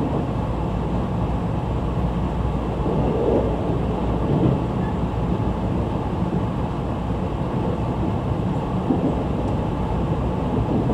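Steady low running rumble of an E653 series electric train, heard from inside a passenger car while it travels at speed.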